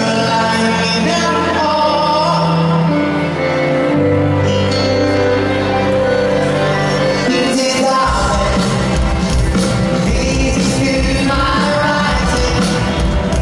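Live pop band with a male singer, heard through a stadium PA. Held keyboard chords carry the first part; about eight seconds in, drums and bass come in with a steady beat.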